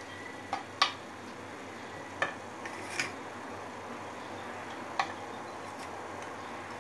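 Five or so light clicks and taps, spaced unevenly, as milk-dipped cocoa biscuits are set down in a glass baking dish and dipped against a china saucer.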